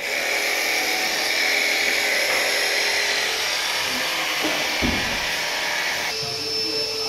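Cordless jigsaw cutting through a plywood board, running steadily with a high buzzing cutting noise. About six seconds in the sound changes to a different steady machine hum.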